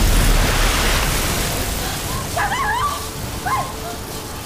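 A swarm of giant mutant cockroaches surges in with a dense rushing hiss over a low rumble, loudest at the start and then fading. A few high, wavering squeals follow about halfway through.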